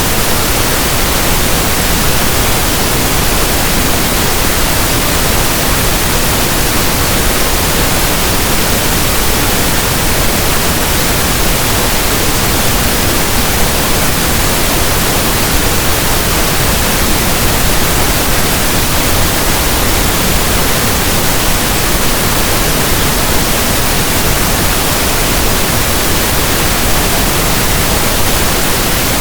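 Steady pink noise: an even static hiss like a radio not tuned to a station, unchanging throughout.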